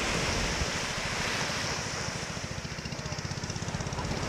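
Surf washing onto a beach, with wind on the microphone and a low steady rumble underneath.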